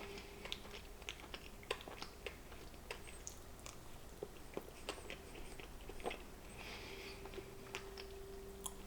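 Close-up chewing of a soft strawberry-filled snack cake, with faint, scattered wet mouth clicks.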